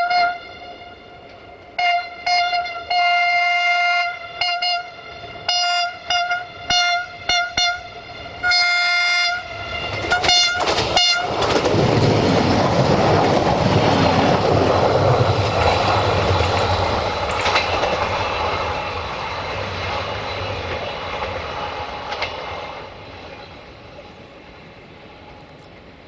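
Siemens Desiro VT642 diesel multiple unit sounding its horn in a quick series of short toots and a few longer blasts. It then passes close by, and the rumble of its diesel engines and wheels on the rails swells and then fades away over several seconds.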